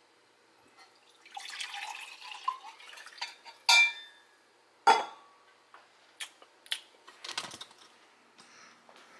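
Hard objects being handled: a stretch of clattering and rustling, then two loud sharp knocks and a few lighter clicks.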